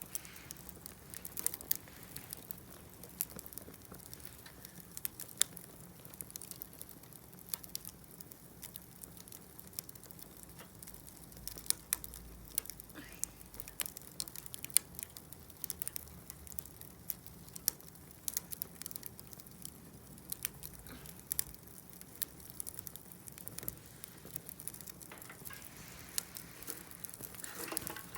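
Wood campfire crackling, with irregular sharp pops and snaps of burning wood.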